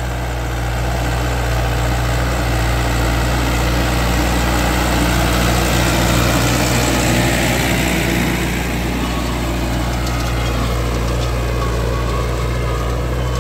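YTO 604 4x4 tractor's diesel engine running steadily under heavy load as it pulls a three-tine deep plough through the soil to break up the hard pan. It is loudest about halfway through.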